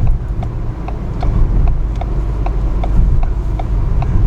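Car cabin with a steady low engine and road rumble, and a turn-signal relay ticking evenly about two to three times a second as the car slows to turn in.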